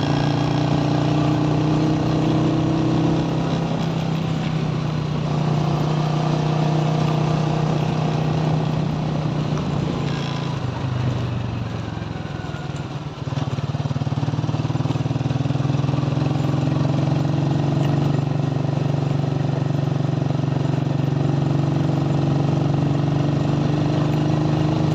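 Motorcycle engine running steadily while riding. About eleven seconds in, the engine note eases and drops for a couple of seconds, then comes back up to its steady pitch.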